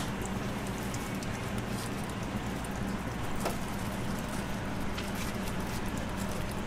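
Steady commercial-kitchen noise: an even sizzle from tempura oil in a deep fryer over a low steady hum, with a few faint light clicks of utensils and plates.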